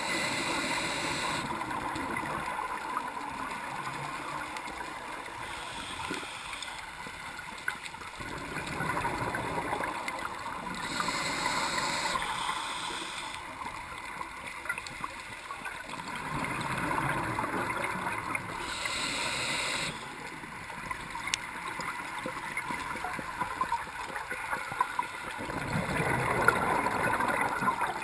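Scuba diver breathing through a regulator underwater: short hissing inhalations alternate with longer bubbling gurgles of exhaled air, in a slow cycle that repeats three times.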